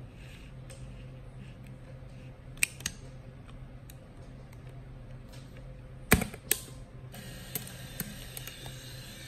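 Hasselblad XPAN II film camera being loaded: light clicks of the film and camera being handled, then two sharp clicks about six seconds in as the camera back is snapped shut. About a second later the camera's film-advance motor starts a steady whir, pre-winding the film onto the take-up spool.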